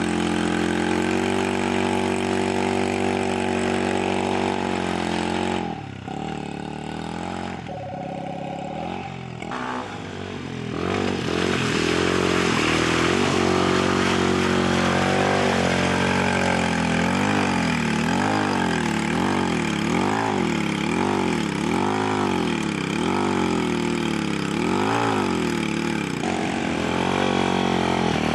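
A 150cc ATV engine is held at high revs as the quad churns through mud. The revs drop back and the sound quietens for a few seconds. Then the engine is revved up and down over and over, about once a second.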